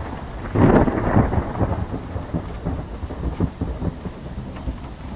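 Thunderstorm: a loud roll of thunder about half a second in, easing off over a couple of seconds, over steady light rain.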